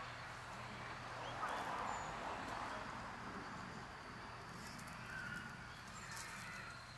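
Outdoor ambience: faint voices of people, footsteps and a few short bird chirps.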